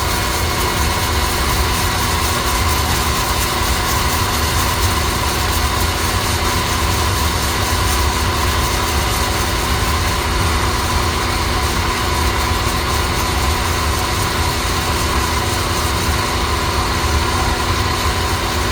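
Coffee roaster running: a steady mechanical drone with a low rumble and a constant tone riding over it, unchanging in level.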